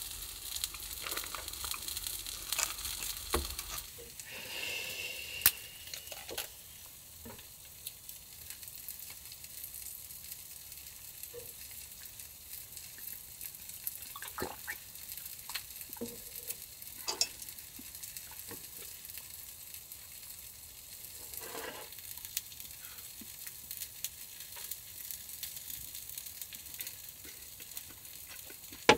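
Takoyaki sizzling steadily on an electric takoyaki plate, with scattered light clicks and taps throughout.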